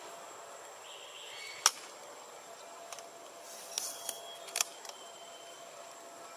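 Outdoor background hiss with a faint steady high tone, broken by one loud sharp click a little under two seconds in and a few smaller clicks around four seconds in.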